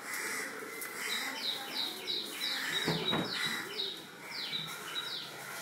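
A bird calling in the background: a quick series of short, high notes, each sliding downward, about three a second.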